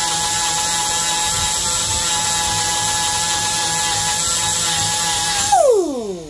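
Angle grinder fitted with a sanding disc running with a steady whine while it smooths a weld on square steel tubing. About five and a half seconds in it is switched off, and its pitch falls away as it spins down.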